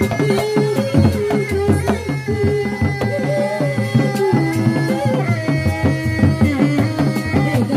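Sundanese reak ensemble playing: dogdog drums beaten by hand in a fast, steady interlocking rhythm, with a sustained melody line of held notes that change pitch from time to time.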